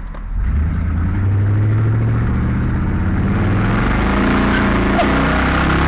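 Chevy Silverado with its muffler cut off, accelerating as it pulls away, heard from inside the cab: a loud, steady exhaust drone that swells in the first second and climbs in pitch as the truck picks up speed.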